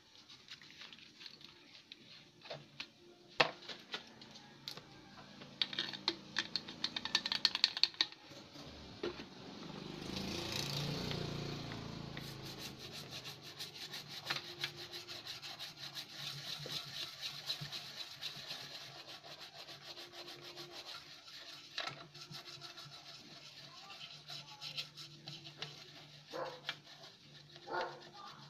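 Toothbrush scrubbing the solder side of a CRT TV circuit board wet with lacquer thinner, cleaning around freshly soldered joints. It goes in spells of quick, scratchy back-and-forth strokes. A low rumble swells and fades about ten seconds in.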